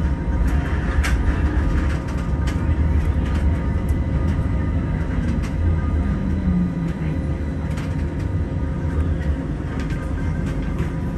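Electric tram running slowly, heard from inside its cab: a steady low rumble with a faint constant hum and scattered light clicks and knocks.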